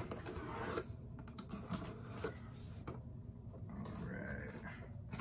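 Faint scratching and clicking of a small hand tool slicing the packing tape along the seam of a cardboard shipping box.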